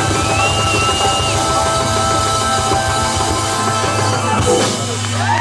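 Live rock band playing the close of a song: electric guitar, bass and drum kit, with a long held bass note under the guitar.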